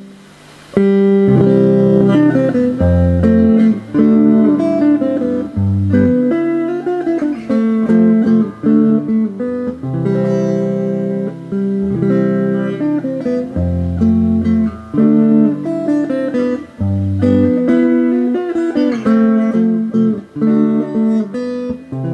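Instrumental background music led by a plucked guitar over a bass line, starting up after a brief lull about a second in.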